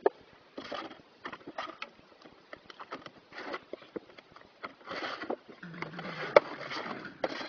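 Wet clay being scooped, thrown and slapped into wooden hand-brick moulds: irregular wet slaps and scrapes, with a sharp knock about six seconds in.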